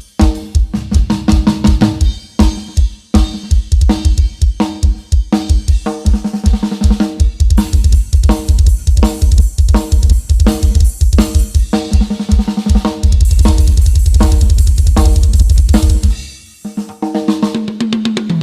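Loud drum-heavy music with deep bass playing through a sound system under test: fast kick, snare and cymbal hits, a long held bass note about 13 seconds in, a brief drop-out about 16 seconds in, then the beat comes back.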